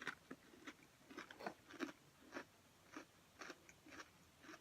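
Close-up chewing of thin, crisp pretzel crackers: faint, dry crunches at roughly two a second.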